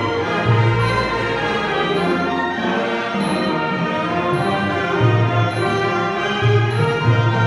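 Thai wind band (trae wong) playing a traditional Thai tune: brass and reeds together with Thai percussion. Deep bass notes recur every second or two, and a high tap keeps time about once a second.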